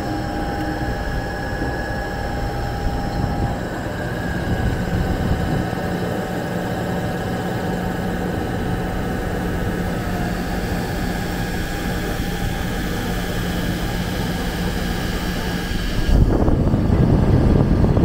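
Wheel repair lathe running while cutting a wheel: a steady machine whirr with faint high tones in it. Near the end it turns suddenly louder and rougher.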